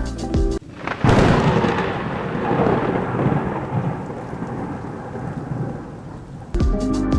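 A clap of thunder, a sudden loud crack that rolls into a long rumble and slowly fades over about five seconds, its hiss dying away before the low rumble.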